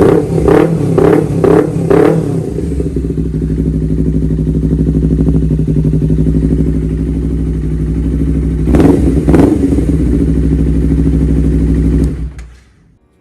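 Honda CBR250RR parallel-twin engine revved through an aftermarket R9 H2 SS exhaust, with a deep, bassy note: four quick throttle blips in the first two seconds, a steady idle, then two more blips about nine seconds in. The sound stops a second or so before the end.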